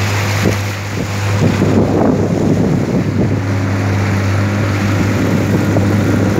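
Motorboat engine running steadily at speed, a constant drone, with wind buffeting the microphone and water rushing past the hull, gustier in the first few seconds.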